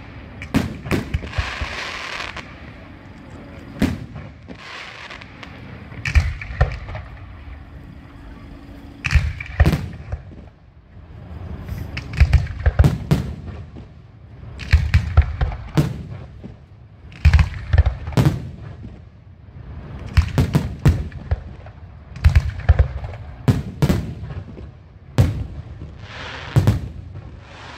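Fireworks and firecrackers going off: many sharp bangs, often in quick clusters of several, every second or two, with short crackling hiss between some of them.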